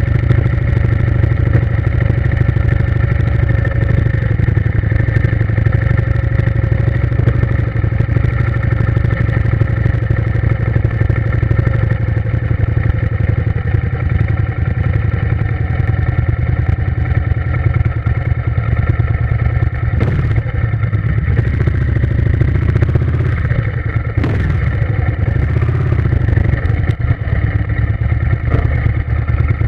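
A motor running steadily at constant speed with a low drone. A couple of knocks come about two-thirds of the way through.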